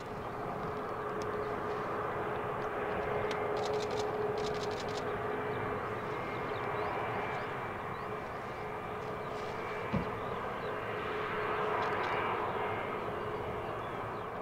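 Embraer E190-E2's geared turbofan engines running at low thrust as the jet taxis: a steady jet whine with a constant tone in it. A few faint clicks come about four seconds in, and a short thump about ten seconds in.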